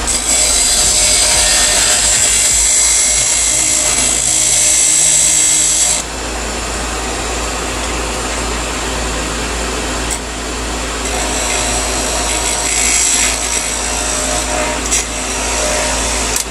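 Wood lathe running with a small skew chisel cutting into the spinning wood, a steady hiss of the edge cutting over the motor's hum. The chisel is cutting down the last thin neck of wood to part the turned piece off. The cut runs for about six seconds, eases, and picks up again for a couple of seconds near the end.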